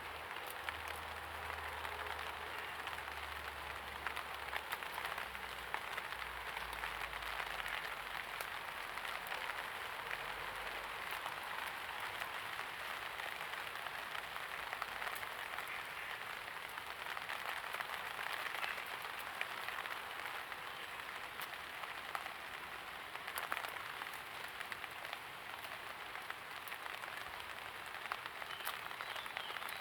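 Light rain falling: a steady hiss with many small, sharp drop clicks scattered through it. A faint low rumble underneath dies away about ten seconds in.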